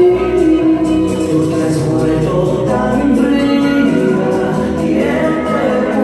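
Bachata song with a sung vocal line over the beat, playing steadily.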